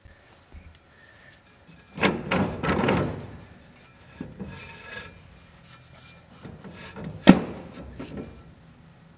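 Shop rag rubbing and scrubbing inside the hub of a 1932 Ford BB truck's brake drum. There is a loud stretch of scrubbing about two seconds in, softer rubbing after it, and one sharp knock near the end.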